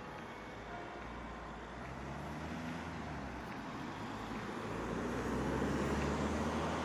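Road traffic: a car approaching, its engine and tyre noise growing steadily louder.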